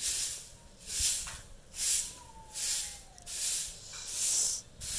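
Rhythmic hissing breaths, one about every second, from an animal breathing and snuffling right against the microphone. A faint falling whistle-like tone runs through the middle.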